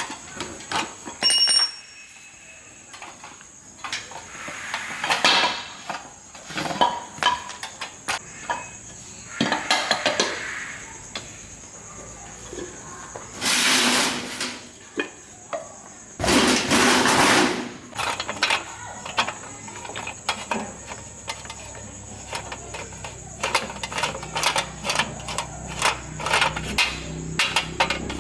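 Hand tools clinking and knocking on metal parts in a series of short, irregular strikes, with two bursts of hiss lasting about a second each midway through.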